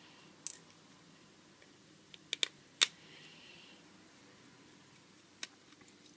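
Scattered sharp clicks and taps from a small Torx screwdriver and a phone being handled during screw removal, about six in all, the loudest near the middle.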